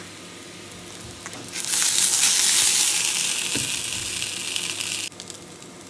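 Homemade vegan sausages sizzling in hot oil in a frying pan as they are turned with a spatula. The sizzle grows much louder about two seconds in and cuts off suddenly near the end, with a light knock in the middle.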